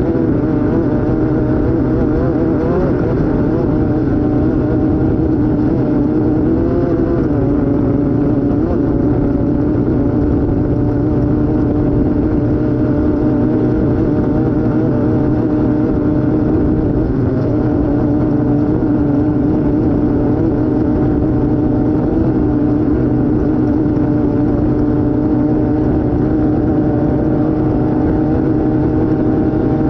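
Off-road race vehicle's engine running hard at a steady high pitch, with brief dips in revs a few times and a rise near the end, over a constant rough rumble.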